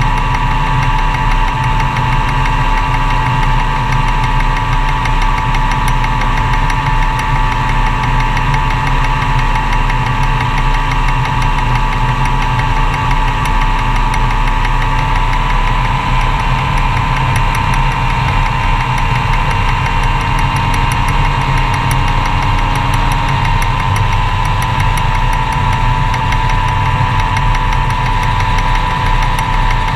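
Magni M-22 Voyager gyroplane's engine and pusher propeller running steadily, heard from on board, with a slight shift in pitch about halfway through.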